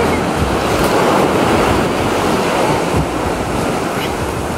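Ocean surf washing on the beach, a steady rushing noise, with wind buffeting the microphone.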